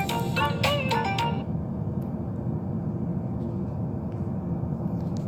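A short burst of music with a melody and percussive clicks that cuts off about a second and a half in, leaving a steady low rumble with a few faint clicks.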